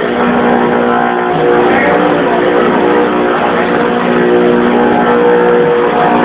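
LX Series CNC engraving router's spindle cutting into a marble plate: a steady whine of several held tones over a gritty grinding noise.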